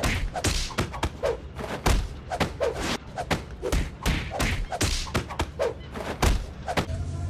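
A rapid, irregular series of thumps and knocks, about three a second, many with a short pitched blip after the knock.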